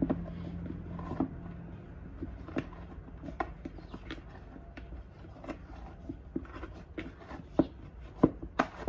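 Naan dough being mixed and kneaded by hand in a bowl: irregular soft taps and clicks at an uneven pace.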